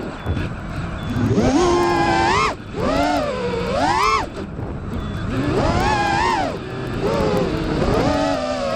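GepRC Mark2 FPV quadcopter's brushless motors and propellers whining, the pitch rising and falling in repeated swells as the throttle is punched and eased through flips and dives. A rushing wind noise runs underneath.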